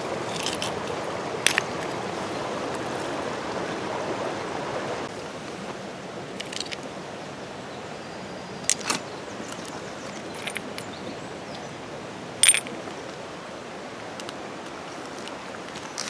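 Shallow river water running over stones, a steady rushing hiss that drops a little about five seconds in. A handful of short, sharp clicks of stones and pebbles knocking together sound over it, the loudest about twelve seconds in.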